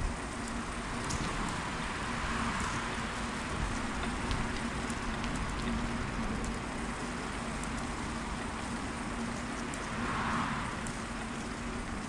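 Steady rushing noise of a bicycle in motion, its tyres rolling and air rushing past, with scattered small clicks and rattles; the noise swells briefly near the end.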